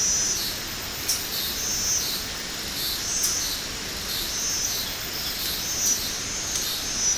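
Birds calling in a natural setting: short, high-pitched calls repeating every second or so over a steady rushing background.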